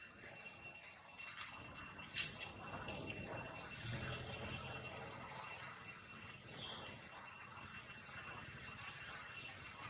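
Forest ambience: a steady, high insect drone, with short high-pitched chirps repeating irregularly about twice a second and some soft rustling.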